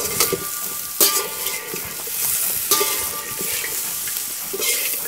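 Potatoes and okra sizzling in oil in a large steel karahi, while a metal slotted spoon scrapes and stirs them against the pan every second or two, each stroke ringing faintly.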